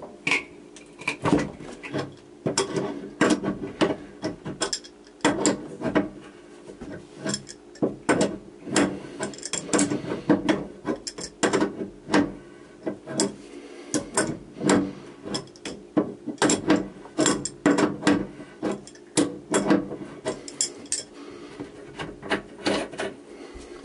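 Adjustable wrench clicking and clinking on the metal nut of a copper water supply line as it is worked loose, in quick irregular taps of metal on metal.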